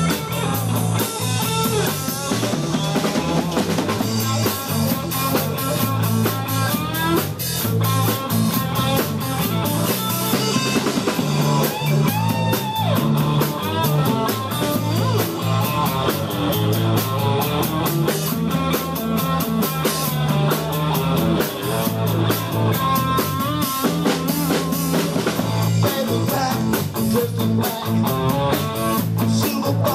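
Live rock band playing: electric guitar, electric bass and drum kit keeping a steady beat.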